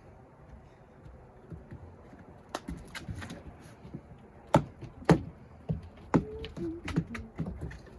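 A puppy playing with a toy: scattered taps and knocks, irregular, with the sharpest pair about halfway through.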